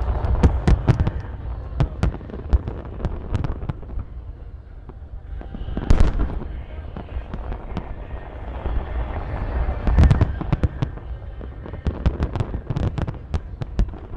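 Large aerial fireworks display: shells bursting in quick volleys with crackling, and heavy booms about 6 and 10 seconds in.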